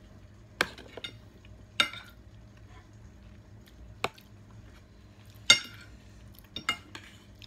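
Metal spoons and forks clinking against bowls and plates while eating, about six separate clinks. Some ring briefly, and the loudest comes about five and a half seconds in.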